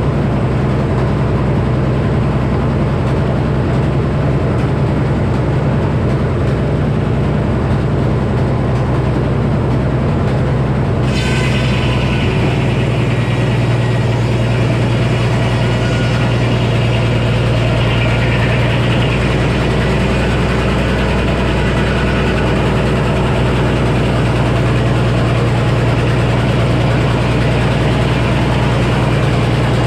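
Minneapolis Moline HEB 605-cubic-inch six-cylinder engine running a Frick sawmill steadily. About eleven seconds in, the circular saw blade starts into a white oak log, adding a high hiss and ring of cutting that continues over the engine, and the engine note changes under the load.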